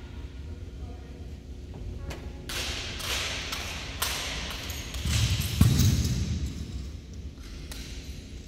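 An exhibition drill team handling drill rifles in unison: a series of sharp slaps and knocks, with the heaviest thud about five and a half seconds in.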